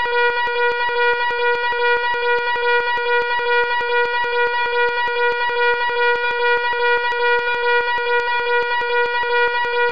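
Fire alarm sounding continuously: a loud, steady buzzing tone with no breaks.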